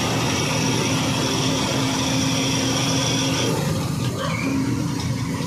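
Ashok Leyland 14-tyre diesel truck running at road speed, heard from inside the cab: a steady engine drone with road and wind noise. A high steady whine stops about three and a half seconds in.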